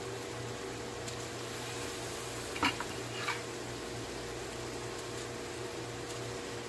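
Chicken and tomato masala sizzling steadily in oil in a wok as tomato pieces go in. There are two short knocks about two and a half and three seconds in, and a steady low hum underneath.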